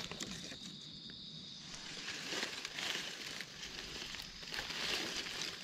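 Dry forest leaf litter rustling and crackling in irregular bursts, with a thin steady high insect drone that stops about a second and a half in.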